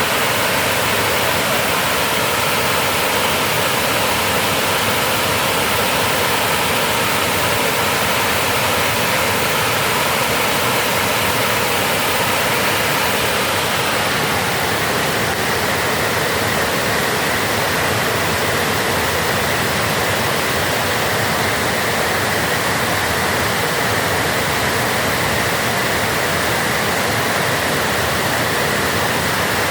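Dam water rushing and pouring in a loud, steady roar of falling water, its tone shifting slightly about halfway through.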